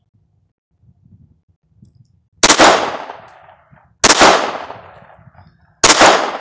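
Three shots from a Beretta 21A Bobcat .22 Long Rifle pocket pistol, fired about a second and a half to two seconds apart, each sharp crack trailing off over about a second.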